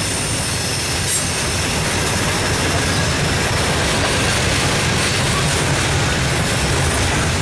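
Freight train cars rolling past close by, with a steady noise of steel wheels running on the rails.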